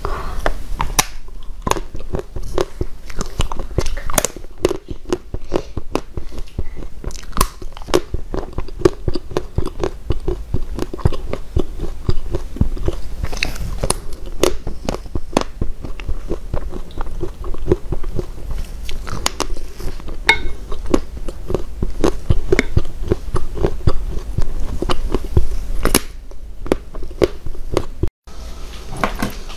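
Close-miked biting and chewing of gummy and jelly candy: a dense, irregular run of small clicks and crunches. The sound drops out briefly near the end.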